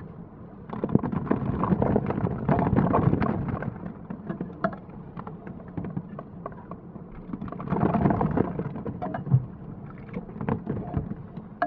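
Soaked Orbeez water beads being squished and crushed: wet squelching with many small pops and crackles, in two heavier spells, one from about a second in and another near the end.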